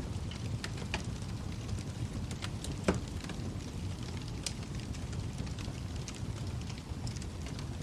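Wood fire burning in a fireplace: a steady low rumble of the flames with scattered sharp crackles and pops, the loudest pop just under three seconds in.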